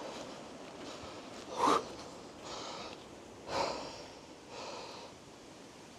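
A person sniffing or snorting hard through the nose twice, about two seconds apart, with heavy breaths in between: a nose running from the cold.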